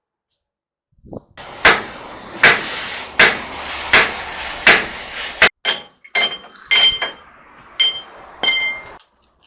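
Hammer striking metal: about six heavy blows, evenly spaced under a second apart over a steady background noise, then several lighter taps that ring.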